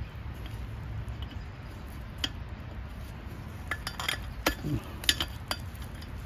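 Scattered light metal clinks and clicks, a few at irregular intervals, from a small nut and tool being worked while a tire valve stem's nut is tightened by hand.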